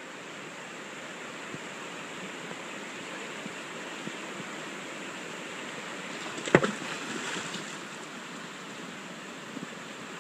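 Shallow river rapids rushing steadily. About two-thirds of the way through comes a sharp splash and a second of splashing as a Labradoodle plunges its head into the river for a rock.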